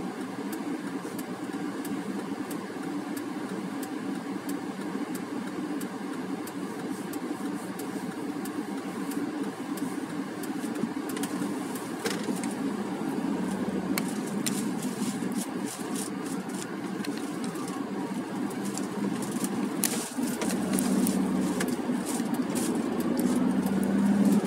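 Car engine heard from inside the cabin, running steadily while stopped, then pulling away, its pitch rising near the end as the car speeds up. Scattered sharp clicks and rattles sound over it.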